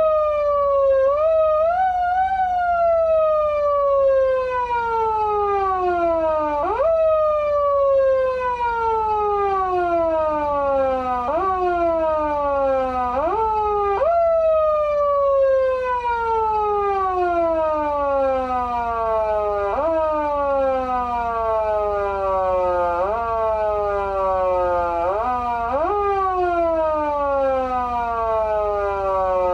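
Electronic police siren from a Patlite SAP-500BK-PV siren amplifier worked by its foot switch: each press sends the wail shooting up in pitch, then it sinks slowly back down. The presses come at uneven intervals, about a dozen times, so the pitch saws up and down irregularly.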